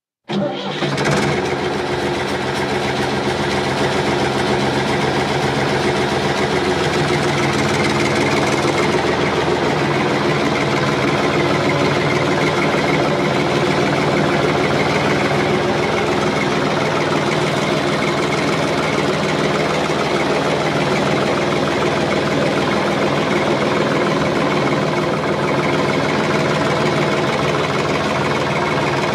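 Large engine running steadily under load. It cuts in abruptly just after the start, then holds an even pitch throughout.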